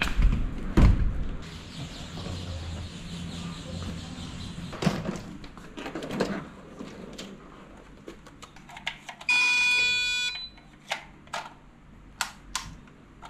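A single steady electronic beep lasting about a second, then several sharp clicks and knocks, with scattered knocks and handling thumps earlier.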